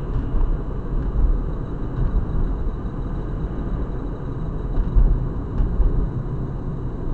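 Steady low rumble of a car driving along a road, heard from inside the cabin: engine and tyre noise at cruising speed.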